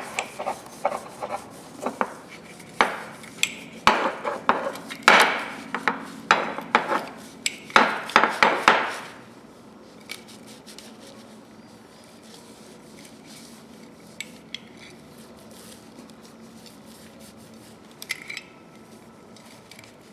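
Metal tools and parts clinking and clattering as they are handled and set down on a workbench, busy for about the first nine seconds, then quiet but for a faint steady hum, with a brief clatter near the end.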